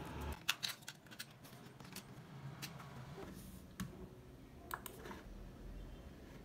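Typing on a laptop keyboard and clicking a computer mouse: a quick run of keystrokes about half a second in, then a few single clicks spread out.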